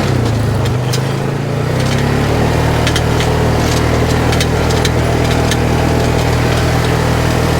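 Polaris RZR 570 side-by-side's single-cylinder engine running steadily, its note shifting briefly in the first couple of seconds, with scattered sharp ticks over it.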